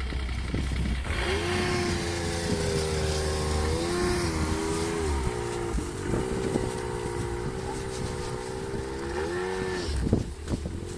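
Yamaha snowmobile engine revving up as the sled pulls away about a second in, then holding a steady high drone as it rides off across the snow, its pitch dipping briefly twice.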